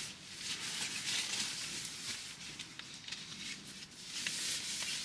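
Uneven rustling and scraping with a few light clicks, in irregular bursts.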